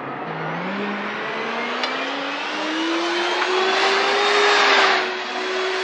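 Cartoon sound effect of a flying vacuum cleaner taking off: a motor whine rising in pitch over the first few seconds and then holding steady, over a rushing hiss that swells about four seconds in.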